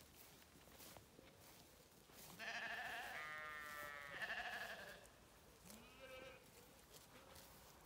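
Zwartbles sheep bleating: one long, wavering bleat starting about two and a half seconds in, then a shorter, fainter bleat around six seconds in.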